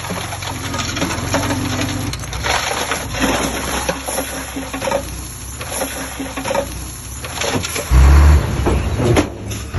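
Heavy earthmoving machine's diesel engine running, with soil and stones crunching and scraping. A short, loud low rumble comes about eight seconds in.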